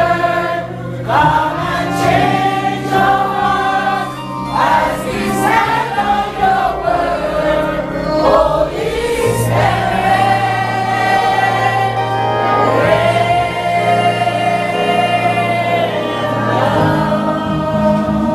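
Choir singing a slow Christian worship song in long, held notes.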